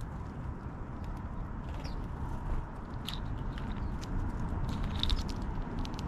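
Sparrows pecking and shuffling in dry sunflower seed hulls close to the microphone: a scatter of small sharp clicks and crunches. A few short, high bird chirps come through, the clearest about three and five seconds in, over a steady low rumble.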